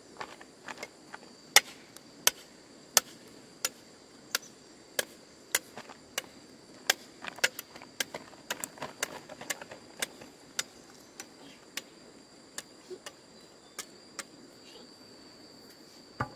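A run of sharp knocks, about one and a half a second, like blows of a tool, thinning out and stopping about two thirds of the way through. A steady high insect drone runs underneath.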